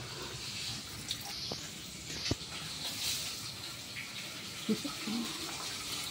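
Tap water running steadily, with a few light clinks of a metal saucepan.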